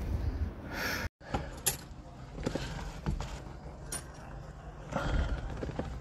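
Scattered clicks and knocks over a low rumble, with a brief dropout about a second in.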